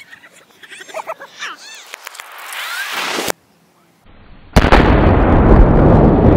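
Tannerite exploding target detonating when shot: one sharp blast about four and a half seconds in, followed by a long, loud rumble.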